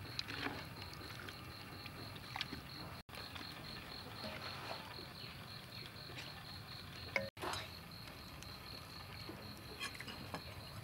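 Scattered knocks and scrapes of a wooden ladle against a metal wok and a clay pot as a fish mixture is spooned across, the sharpest about seven seconds in. Behind them runs a steady, evenly pulsing high insect chirp and a low hum.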